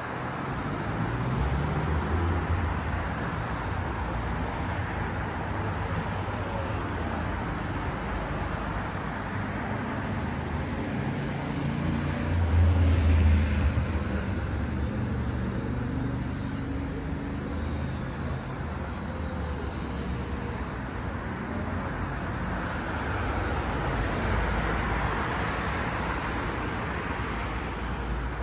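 City street traffic: motor vehicle engines running and passing, with one passing close and loudest about halfway through.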